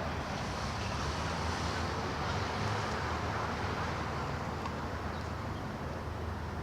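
Steady road traffic noise: a continuous rush of passing vehicles over a low engine hum.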